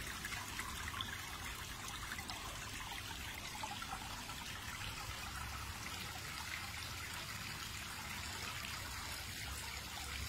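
Water trickling steadily over the overflow edge of a swimming pool, a slow, even flow.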